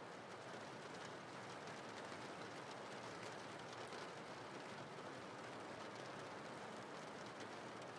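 Recorded rain ambience: a faint, steady hiss of falling rain.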